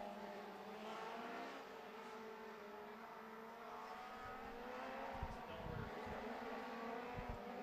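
Winged sprint car engines running at low, wavering revs as the cars circle slowly under caution, heard faintly. A few deep low thumps come about five seconds in and again near the end.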